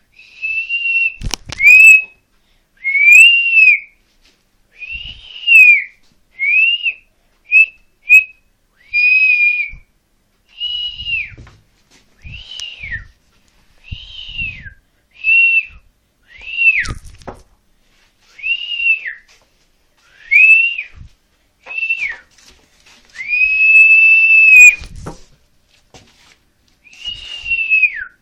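A person whistling a string of short notes, about twenty in all, many swooping up and down or dropping at the end, with one longer held note near the end. A few sharp knocks come in between.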